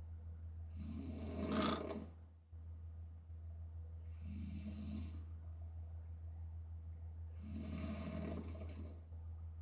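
A woman snoring through an open mouth in deep sleep: three snores about three seconds apart, the first the loudest. A steady low hum runs underneath.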